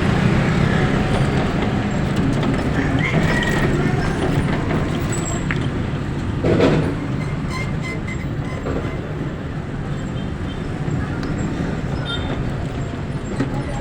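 Steady low rumble of a moving vehicle's engine and road noise, with a brief louder noise about six and a half seconds in.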